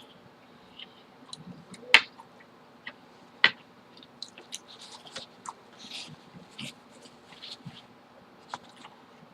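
Close-up eating sounds: chewing with wet mouth clicks and smacks, and two sharp clicks, the loudest sounds, about two and three and a half seconds in.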